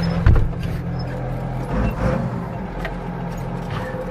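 Ford 8830 tractor's diesel engine running steadily, with one loud thump about a third of a second in.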